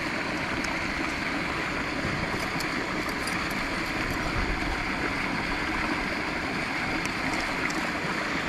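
Steady rush of flowing creek water, with a few faint ticks over it.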